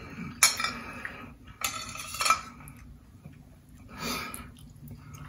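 Metal fork clinking and scraping on a plate as food is picked up, a few separate short clinks.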